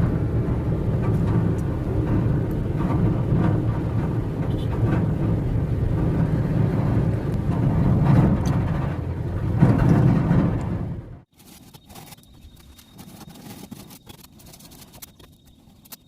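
A motor running steadily with a low rumble, which stops abruptly about eleven seconds in, leaving a much quieter stretch with light scattered clicks.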